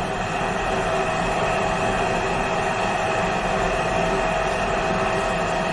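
Hydraulic power unit of a wire bending and welding machine running steadily: an even mechanical hum with a few fixed tones, without change.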